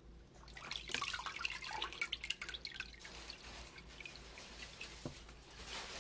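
Water draining through the screen of a papermaking mould and deckle freshly lifted from a vat of paper pulp, splashing back into the vat. It comes as a dense spatter of drips for the first few seconds, then thins to scattered drips.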